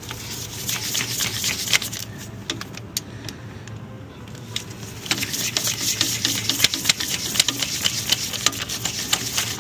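Ratchet clicking rapidly as the hold-down bolts of a diesel unit pump are wound out. The clicking thins out for a couple of seconds midway, then picks up again.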